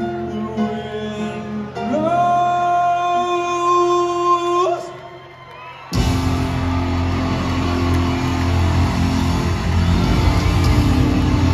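Live rock band playing loud in a large hall. Long held guitar and vocal notes break off a little under five seconds in. After a brief dip, a dense full-band passage starts abruptly about six seconds in, with the crowd cheering.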